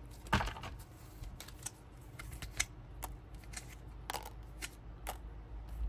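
Cards being drawn from a deck and dealt onto a spread: a string of light, irregular card clicks and snaps.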